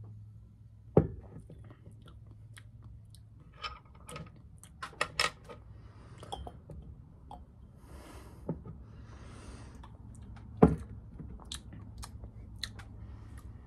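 Mouth sounds of someone tasting a fizzy drink: small smacks and clicks of the lips and tongue. A glass soda bottle knocks down onto the table sharply about a second in and again around ten seconds in.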